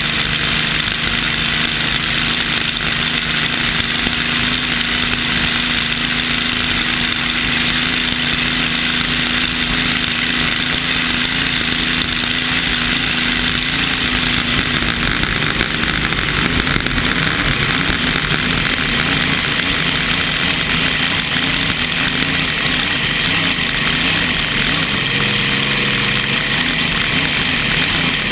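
Vintage unlimited hydroplane's engine running hard at speed, heard from the cockpit over heavy rushing wind and water spray. The engine note holds steady, then turns rougher and wavers about halfway through.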